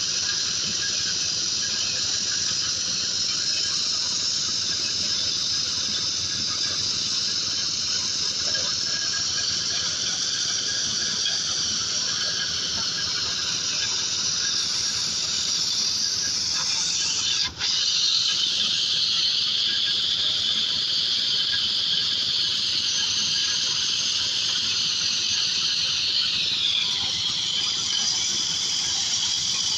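Corn sheller machine running with a steady high-pitched squealing whine. It cuts out for an instant partway through and drops slightly in pitch near the end.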